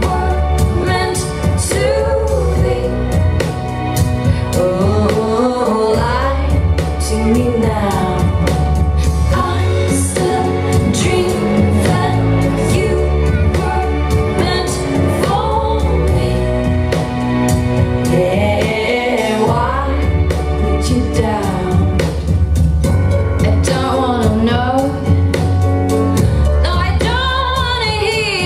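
Pop dance music with a steady beat and a sung vocal line, including a female voice.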